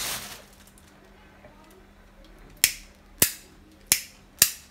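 A disposable lighter being clicked four times in quick succession, about half a second apart, and catching a small flame.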